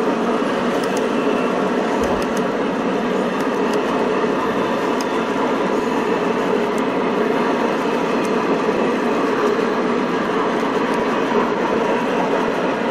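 Model trains running on a layout: a steady rolling din of model freight cars on the track, with a few faint light clicks.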